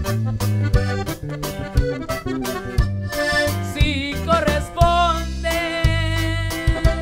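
Norteño corrido music: an accordion plays a melodic passage over a bajo sexto and a deep bass line with a steady beat.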